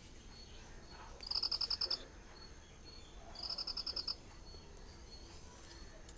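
A small animal's rapid pulsed trill, high-pitched and under a second long, heard twice with about a second and a half between, over a faint steady background.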